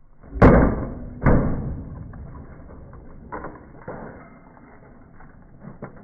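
A baseball bat smashing into a microwave oven: two loud impacts about a second apart, each ringing out briefly, then a few fainter knocks.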